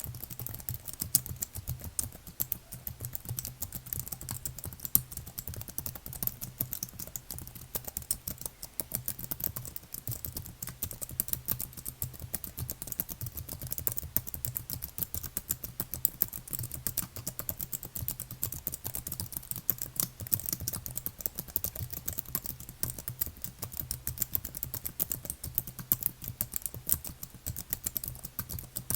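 Continuous fast typing on a computer keyboard: a dense, unbroken stream of key clicks, with a faint steady low hum underneath.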